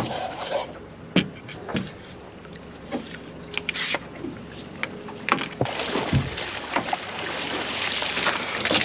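Sharp knocks and clatter aboard a small fishing boat while a fish is netted, over a faint steady low hum, with a hissing wash of water noise building over the last few seconds.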